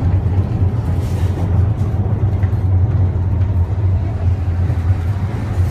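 Wuppertal Schwebebahn suspension railway car running along its elevated steel track: a loud, steady low rumble with a noisy hiss above it.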